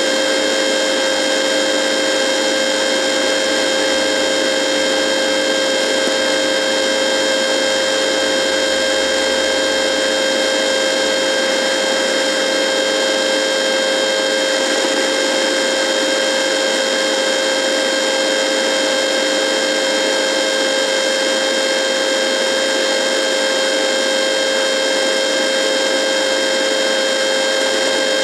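Radio buzzing: a constant electrical buzz of several held tones over a hiss, unchanging throughout, with no voice or music.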